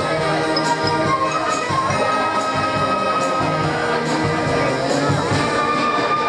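A school band playing: brass and wind instruments holding sustained chords over a steady, light tapping beat.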